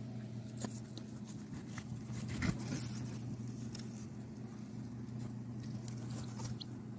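Steady low hum with scattered light clicks and scratchy rustling in the straw nest of a box of hatching quail eggs; the loudest rustle comes about two and a half seconds in.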